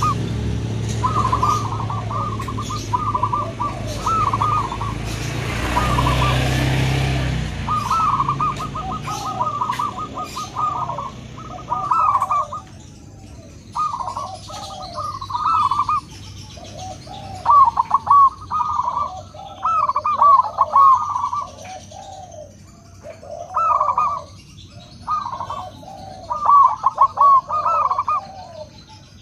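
Zebra dove (perkutut) cooing: phrase after phrase of its trilled, bubbling song, each phrase a run of rapid notes ending in lower coos. A low rumble underlies the first several seconds and fades out about eight seconds in.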